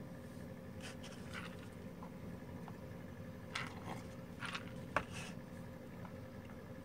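A few soft sips and mouth sounds from drinking out of a paper cup, with light rustling and one small click, over a faint steady room hum.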